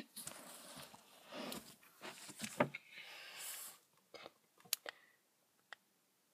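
Handling noise from a phone camera being pushed around in a cramped spot behind furniture: rustling and scraping, then a few separate sharp clicks and knocks in the second half.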